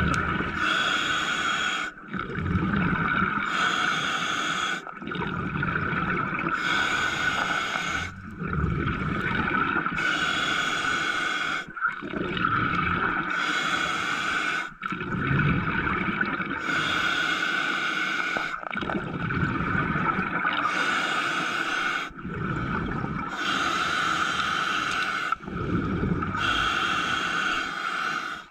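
A diver breathing steadily through the mouthpiece, heard underwater: a hissing breath and a bubbling breath alternate in a slow cycle of about one breath every three seconds. A steady high whine runs underneath.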